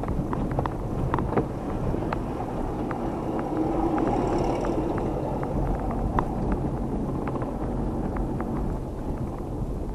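A car driving slowly over a rough, muddy dirt road, heard from inside the cabin. Engine and tyre noise make a steady low rumble, with frequent irregular small clicks and rattles.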